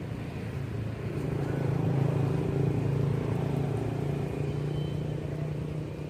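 A motor vehicle's engine running with a steady low drone, growing louder about a second in and fading again toward the end, as a vehicle going by.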